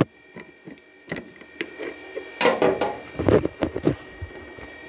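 Handling noise: scattered clicks, knocks and rustles of objects being fumbled and moved about, louder in a couple of clusters past the middle, over a faint steady hum.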